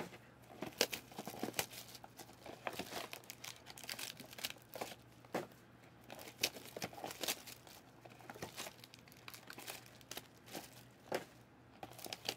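Trading-card packaging being handled and torn open by hand: irregular crinkling, rustling and tearing of plastic wrap and cardboard from a box of card packs.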